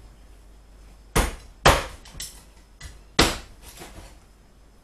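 Knife chopping raw duck into small pieces through the bone: three loud chops with a few lighter knocks between.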